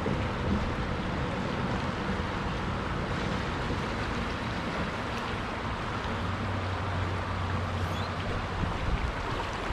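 River water rushing over a shallow rocky riffle, a steady wash of noise, with some wind on the microphone.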